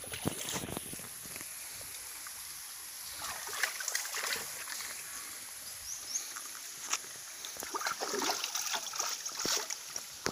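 Water splashing and swishing in a shallow stream as hands rinse a cleaned fish, in uneven bursts over the steady run of the stream.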